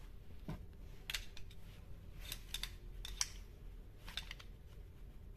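A screwdriver clicking and scraping against the metal gear housing of an angle grinder while prying the armature loose: a few faint, sharp clicks spread out irregularly.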